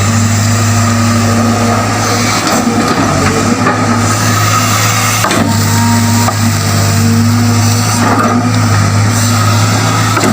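Excavator's diesel engine running steadily, with a few brief knocks.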